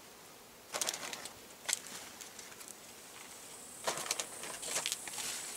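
Soft rustling of a bag and of dry fertilizer granules being scattered by hand onto strawberry leaves, in about four short bursts.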